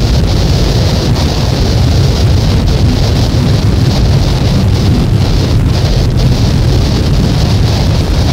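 Loud, unchanging wall of noise from a noise-music recording: a low rumble under a hiss, with brief dropouts now and then and no melody or beat.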